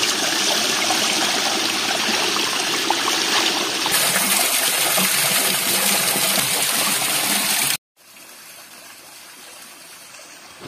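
A small stream pouring and splashing over rocks close by, a steady rush that changes character about four seconds in. Near the end it cuts off suddenly, then the stream's rush comes back much quieter.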